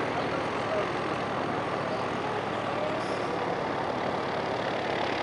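Steady rushing outdoor background noise with faint distant voices; the rocket itself is too far away to be heard.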